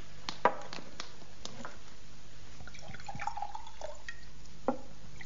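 Whisky being poured from a bottle into glasses, with a few sharp clinks of glass on glass.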